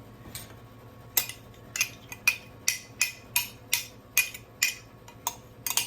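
A metal utensil repeatedly clinking and tapping against a baking dish or bowl, about a dozen sharp taps at roughly two to three a second, starting about a second in.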